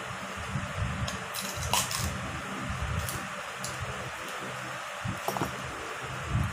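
Biting into and chewing a green mango, with several sharp crunches of the bites. An electric fan whirs steadily underneath.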